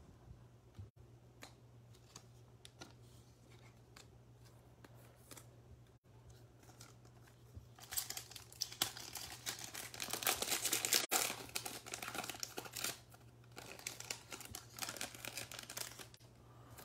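Foil wrapper of a Panini Chronicles football card pack being torn open and crinkled by hand. Faint light handling for the first several seconds, then loud crackling about eight seconds in, a short pause, and a second spell of crinkling near the end.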